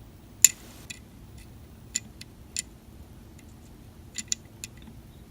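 Light clicks and taps of a 1:64 scale toy toolbox and diecast pickup trucks being handled and set down, about eight in all, the loudest about half a second in.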